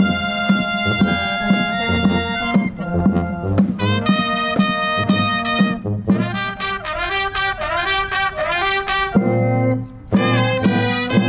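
Marching band of trumpets, mellophones, sousaphone and clarinets, with drums, playing loudly. It opens on a held chord, then moves into punchy rhythmic phrases over a pulsing bass line. There is a brief dip about nine seconds in before the full band comes back in.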